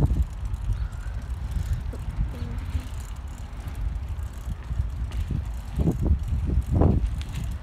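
Wind rumbling over a phone's microphone while riding a bicycle, with a few louder gusts near the end.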